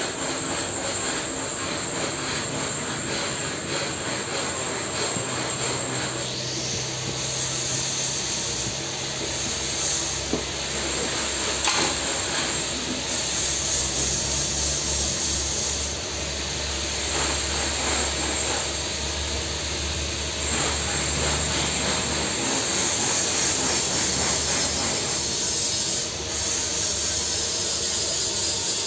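Steady hiss and hum of a pipe-welding bay, with a TIG welding arc burning on a steel pipe joint at times; a low hum sets in about a quarter of the way through and fades out past the middle.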